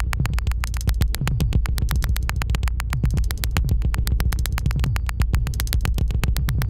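Electronic synthesizer sound from the Moebius Lab app: a fast stream of sharp clicking pulses over a steady low drone, with a low swooping tone coming back again and again.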